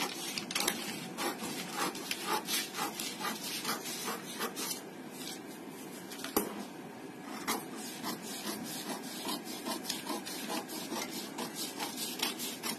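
Scissors cutting through a paper pattern sheet: repeated snips, about two a second, with the paper rustling and scraping between cuts. There is a short lull near the middle.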